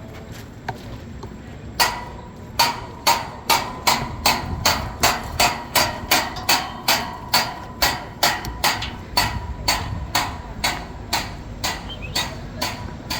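A long series of sharp, even knocks, about two or three a second, each with a slight ring. They start about two seconds in and grow fainter near the end.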